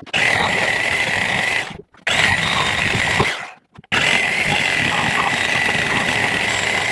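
Reciprocating saw (Sawzall) with a metal-cutting blade cutting the nailed-on blocks and fasteners off a pallet. It runs in three bursts with brief stops between, under a steady high whine.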